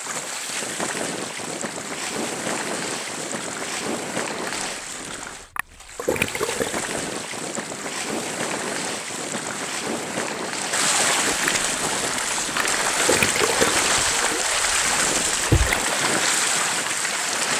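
Seawater splashing and churning at the surface, stirred up by fish feeding on bait, with wind noise on the microphone. The sound cuts out briefly about five and a half seconds in, then comes back and grows brighter and louder about eleven seconds in.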